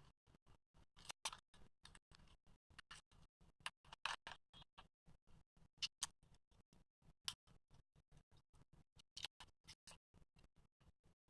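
Slime being squeezed and poked by hand, making faint, irregular clicks and pops, a few of them louder.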